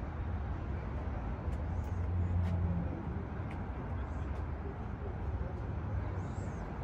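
Low, steady rumble of a vehicle engine running, swelling briefly about two seconds in, with a few faint clicks.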